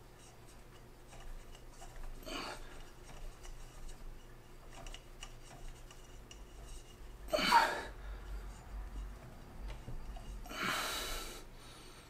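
Faint hand-work sounds as a 2.5 mm hex key drives a screw into the tensioner lever of a metal dual gear 3D-printer extruder. Three short rasping noises come about two, seven and a half and ten and a half seconds in, the middle one loudest.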